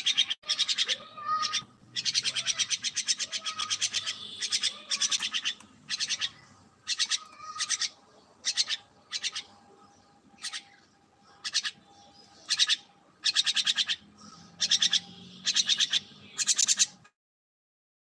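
A myna calling again and again in short, harsh, rasping bursts, some running for more than a second. The calling stops abruptly about a second before the end.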